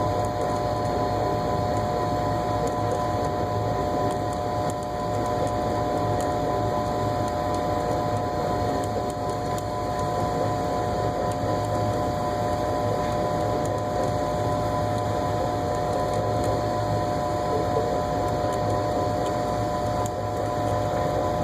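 Motor-driven ball screw running steadily, with a constant whine made of a few fixed tones over a low hum and mechanical rumble.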